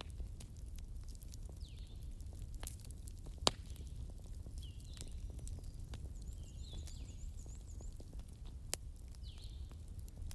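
Wood fire crackling: a steady low rumble with scattered small crackles and two sharp, louder pops, one about three seconds in and one near the end. A short high chirp repeats about every two seconds in the background.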